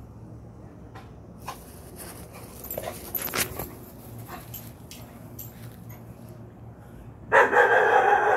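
Dog barking loudly at a noise it has heard beyond the yard fence. The barking starts suddenly about seven seconds in, after faint rustling and a few clicks.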